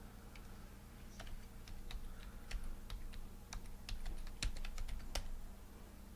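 Typing on a computer keyboard: a run of irregular key clicks that starts about a second in and stops shortly after five seconds.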